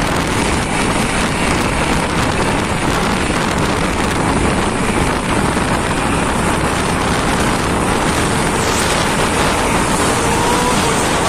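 Heavy truck's diesel engine and tyres passing close, a steady, loud noise with no pauses.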